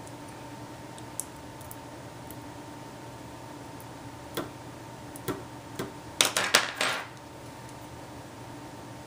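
Small plastic clicks and scrapes of a pry tool working on an opened LG G2 phone's internals: a few single light clicks, then a quick cluster of louder clicks and scrapes about six seconds in, over a steady faint hum.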